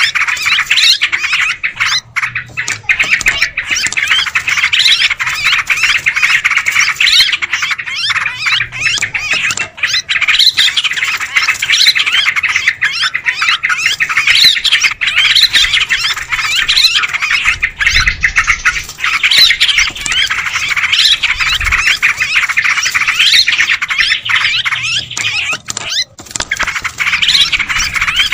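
Yellow-vented bulbuls (trucukan) chattering noisily, many calls overlapping without a break, with short rising-and-falling notes recurring every second or two: the excited flock chatter used as a lure call for this species.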